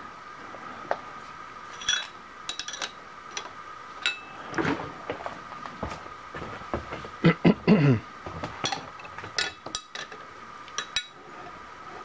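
Scattered metal clinks and knocks, with a few short scrapes, as a cast-iron swivel-base milling vise is turned on its graduated base on the steel mill table.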